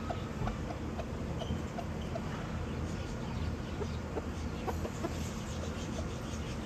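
Chickens clucking in short, repeated calls, a few a second, over a steady low hum.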